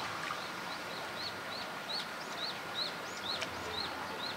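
A small bird calling in a rapid series of short, high chirps, about three a second, over steady outdoor background noise.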